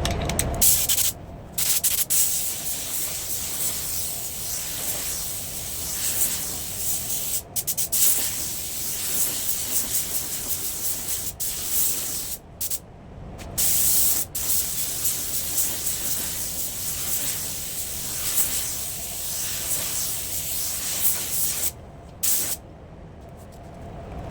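Paint spray gun hissing with compressed air during long spraying passes. The hiss stops abruptly for short gaps several times, notably about a second in, around twelve to fourteen seconds, and near the end.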